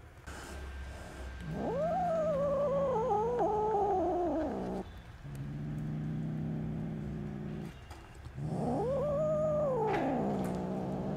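Tabby kitten giving two long, drawn-out meows, each rising and then falling in pitch: one about two seconds in, the other near the end. A low steady drone runs beneath and between them.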